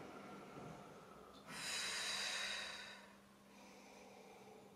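A woman exhaling forcefully through the mouth in one breathy rush lasting about a second and a half, starting about a second and a half in, as part of the breathing of a Pilates exercise.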